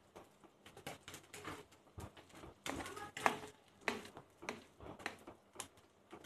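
Metal potato masher pressed repeatedly into soft roasted, peeled eggplant on a plate: faint, irregular soft squelches and light taps.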